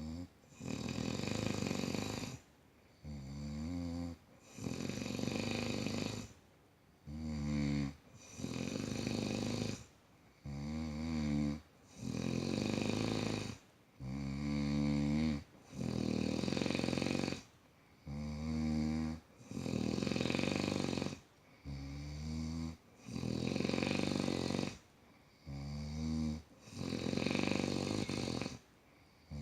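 A man snoring heavily in a steady breathing rhythm, about eight breaths in all. Each breath alternates a buzzing, rattling snore with a rougher, rasping breath, and there are short quiet gaps between them.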